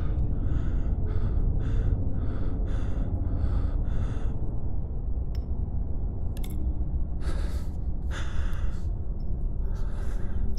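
A man breathing hard: quick, short panting breaths, about two a second, for the first four seconds, then three slower, longer breaths. Under them runs a steady, loud, low rumbling drone.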